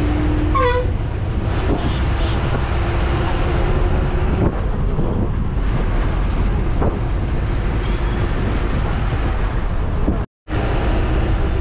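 Ride noise inside a moving TNSTC bus: its diesel engine and the tyres on the road make a steady, loud low rumble. The sound cuts out for an instant about ten seconds in.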